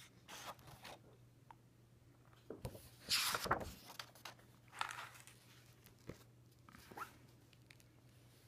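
Pages of a large book being turned by hand: a few paper swishes and rustles, the loudest and longest about three seconds in, with smaller ones near the start, at about five seconds and at about seven seconds.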